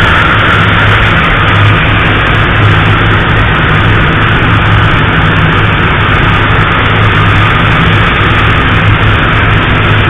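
High-pressure steam leak at a boiler waterwall gasket, at about 911 psi, hissing loudly and steadily over a steady low hum of boiler-room machinery.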